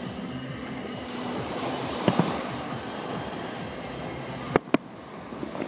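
Aerial firework shells bursting over the sea: a pair of bangs about two seconds in, then a louder, sharper pair a little after four and a half seconds. Steady surf washes on the beach underneath.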